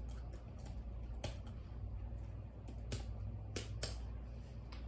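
Laptop keyboard being tapped: a handful of separate key clicks, a second or so apart, over a steady low hum.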